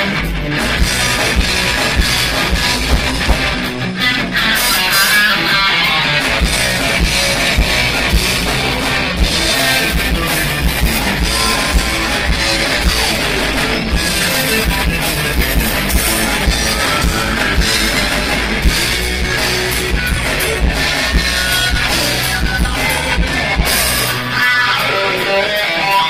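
Live rock band playing an instrumental passage: electric guitars over a drum kit and a heavy low end, with some gliding tones. Recorded through a phone's microphone, so the sound is rough and boomy.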